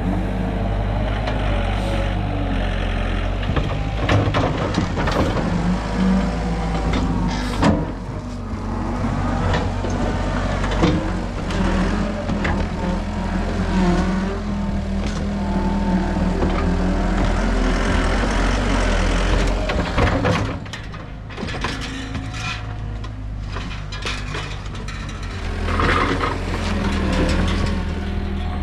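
Diesel engine of heavy digging equipment running steadily, with occasional sharp knocks and clanks.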